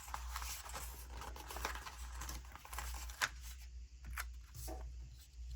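Faint handling of a paper sticker sheet: light rustling with a few sharp little ticks as a sticker is picked off, over a steady low hum.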